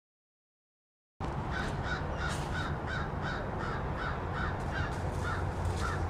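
White ibises calling, a steady series of harsh, honking grunts at about three a second, starting about a second in over a steady low rumble.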